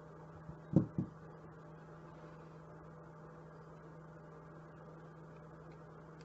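Faint steady low hum, with two short knocks in quick succession a little under a second in.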